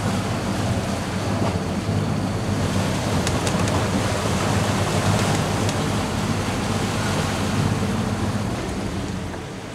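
Steady rush of wind and sea water around a catamaran under way, with a low rumble underneath and wind buffeting the microphone. It eases slightly near the end.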